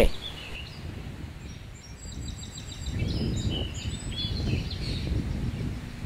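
Outdoor ambience: small birds singing short, thin, high notes a couple of seconds in, over a low rumble that grows louder about halfway through.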